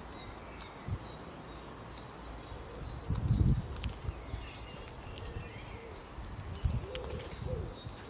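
Small birds chirping and twittering, one repeating a short high note, over a steady outdoor background noise with a couple of low rumbles.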